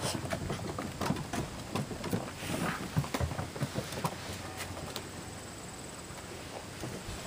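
Dalmatian puppies' paws tapping and clicking on wooden deck boards: a quick, busy run of taps for the first four seconds or so, then only scattered ones.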